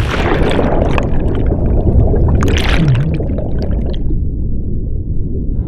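Action camera plunging into a pool at the foot of a water slide: a splash, then loud rushing, bubbling water heard through the submerged camera, turning dull and muffled about four seconds in.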